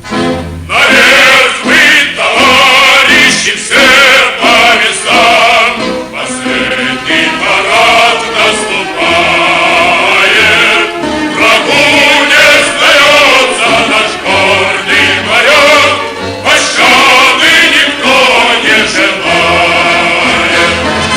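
Male choir singing a Russian naval song with instrumental accompaniment.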